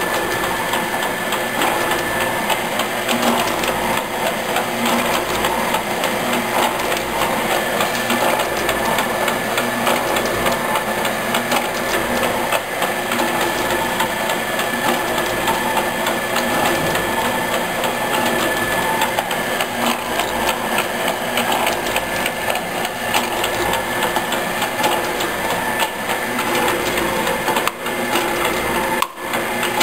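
Sanches Blanes metal shaper running, its ram stroking back and forth with a rhythmic clatter of fine clicks and a low repeating pulse over a steady high whine from the drive.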